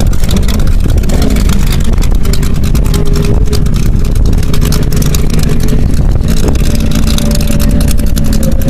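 Racing powerboat engines running loud and steady, with a heavy low rumble and a held engine tone.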